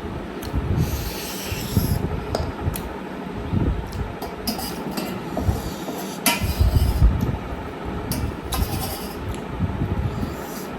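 Close-up mukbang eating sounds: someone chewing mutton curry with irregular wet smacks and small clicks, and now and then a rub or scrape.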